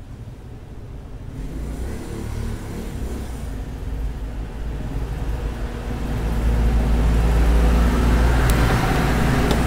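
Low rumble of a passing motor vehicle, swelling steadily over several seconds and loudest near the end, with a single light click shortly before it peaks.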